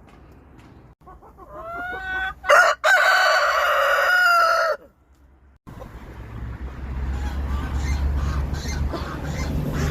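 A rooster crows once: a single long cock-a-doodle-doo of about three and a half seconds that rises and then holds before stopping. After a brief break a steady low rumble with background noise takes over.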